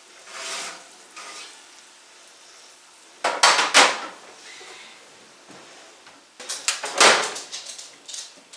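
Metal pans and utensils clattering in two loud bursts, about three seconds in and again around seven seconds, over a low sizzle of barbecue chicken cooking under an oven broiler.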